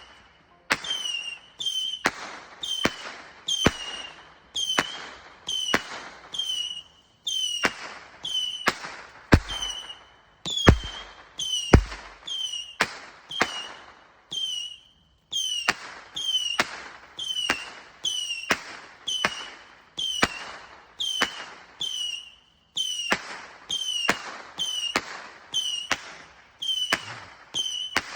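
Consumer fireworks going off in a long, regular run of shots, about one and a half a second, each with a short whistle that drops in pitch and then holds. Three heavier booms come close together near the middle.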